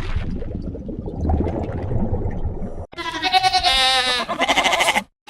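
A low, noisy sound, then, after an abrupt cut about three seconds in, an animal bleating: two loud wavering cries, each about a second long, one straight after the other.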